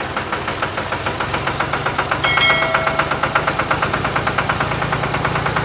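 Tractor engine running at a steady idle, a regular knocking putt-putt of about eight beats a second. A brief bright chime sounds about two seconds in.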